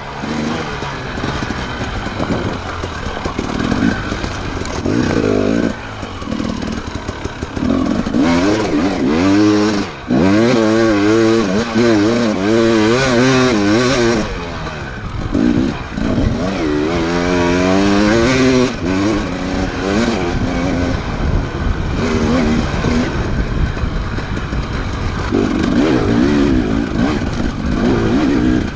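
Enduro motorcycle engines revving hard, the pitch rising and falling quickly and repeatedly as the throttle is worked.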